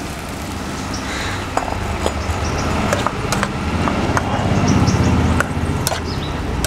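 Gravy being stirred in a pan after a cornflour-and-chilli slurry is added: scattered clicks of a spoon against the pan over a low rumble that swells about four seconds in and drops off sharply just after five seconds.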